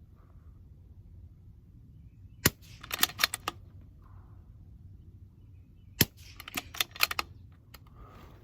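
Two shots from a Bergara B14R .22 LR bolt-action rifle, about three and a half seconds apart, each followed by a quick run of clicks as the bolt is cycled for the next round.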